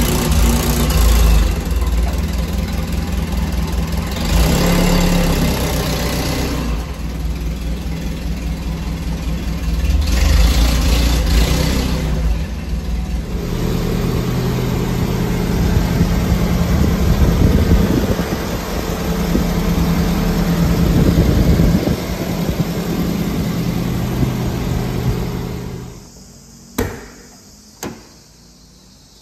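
1992 Nissan Vanette truck's engine running, surging louder three times in the first dozen seconds, then idling steadily. Near the end the engine sound fades away and two sharp clicks follow.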